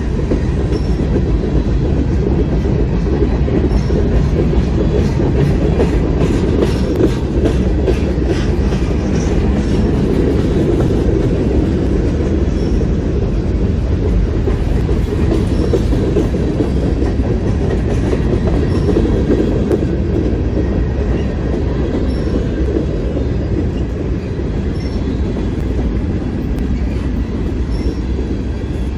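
Freight cars of a passing manifest train (boxcars, then tank cars) rolling by close at trackside: a loud, steady rumble of steel wheels on rail, with clicking as the wheel sets pass over the rail joints.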